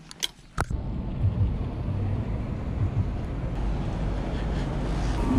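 Outdoor street ambience: a steady low rumble of road traffic and passing cars, which starts abruptly after a few short clicks.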